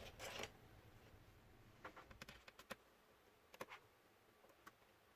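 Near silence with a few faint, scattered clicks and taps from small plastic laptop parts being handled.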